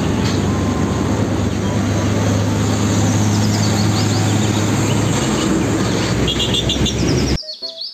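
Fuel tanker truck's diesel engine running with tyre and road noise as it drives past: a steady low hum under a broad rush. Birds chirp partway through, and the sound cuts off suddenly about seven seconds in.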